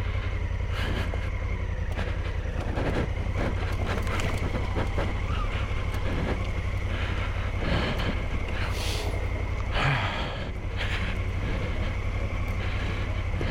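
Big adventure motorcycle's engine running steadily at low revs on a slow descent of a steep rocky gravel trail, with loose stones crunching under the tyres and frequent short knocks and rattles from the bike over the rocks.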